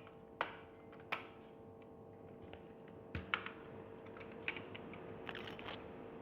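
Scattered small clicks and taps of a screwdriver working screws out of a plastic camera body, with a few clustered together about three seconds in and again near the end, over a faint steady hum.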